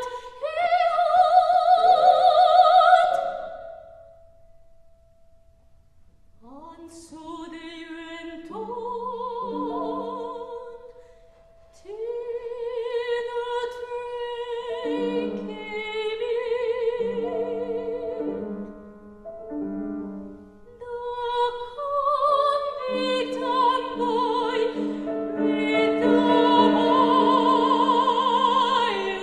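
Soprano singing a classical art song in operatic style with full vibrato, accompanied by grand piano. After a brief quieter stretch a few seconds in, the song builds to loud, sustained singing over piano chords near the end.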